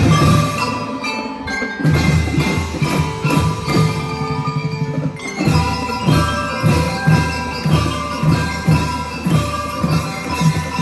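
A school band playing: xylophones and other mallet instruments ring out a fast melody over a steady low beat, which drops out briefly about five seconds in.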